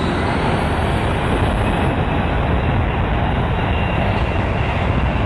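Jet blast from a Boeing airliner's engines at high thrust: a steady, loud rushing noise, heaviest in the low end, with the wind buffeting the microphone.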